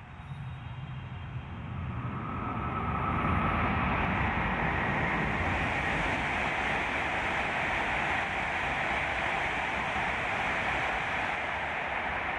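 E7/W7-series Hokuriku Shinkansen Kagayaki train running by, a broad rushing noise of wheels and air that builds about two seconds in and then stays loud and steady.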